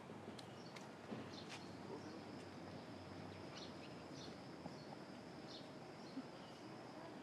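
Faint background ambience: a low hiss with scattered soft clicks and short chirps, and a thin, steady high-pitched tone through the middle and latter part.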